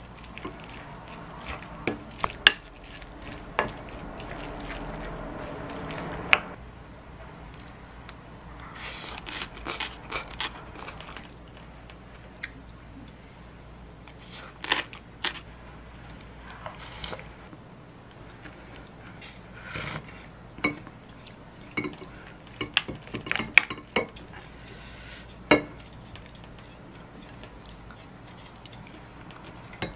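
A spoon stirring and scraping rice through a glass bowl of bibimbap, with sharp clinks of the spoon against the glass. After the mixing, scattered separate clinks of the spoon on the bowl.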